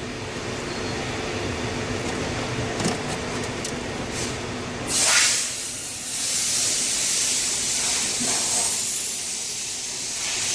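A low steady hum, then about five seconds in a loud, steady hiss of a spray or air jet starts suddenly.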